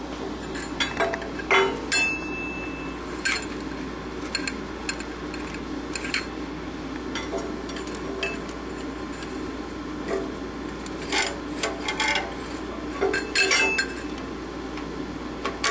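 Steel tools and valve-train parts clinking and clicking against a flathead Ford engine block as a flathead valve spring tool is fitted. The clinks come in irregular clusters, one ringing briefly about two seconds in.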